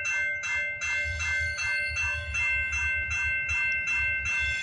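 Railroad crossing bell ringing steadily at about two and a half strikes a second while the crossing is activated. Under it is the low rumble of an approaching freight train, which grows about a second in and again near the end.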